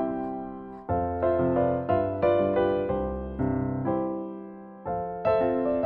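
Background solo piano music: a light melody over chords, each note struck and dying away.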